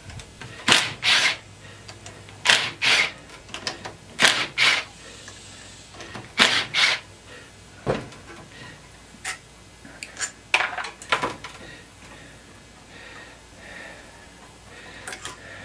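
Hand socket ratchet clicking in short quick strokes, mostly in pairs, as bolts are worked loose on a small cast-aluminium compressor. The strokes stop after about eleven seconds.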